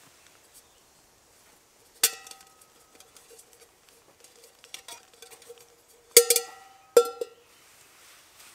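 Metal clanks that ring briefly as a metal cooking pot is set onto a Bushbox XL folding steel stove: one sharp clank about two seconds in, small clinks after it, then a double clank and a third clank about six and seven seconds in.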